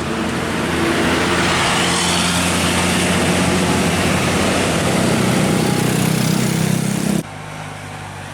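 A bus passing close by: a loud, steady rumble of engine and tyres, with the engine hum building toward the end. It cuts off abruptly about seven seconds in, leaving a quieter steady engine hum.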